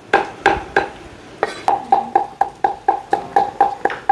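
Cleaver chopping boiled dog cheek meat on a round wooden chopping block, mincing it for tiết canh. A few separate chops, then fast steady chopping at about four strokes a second, each stroke with a short metallic ring.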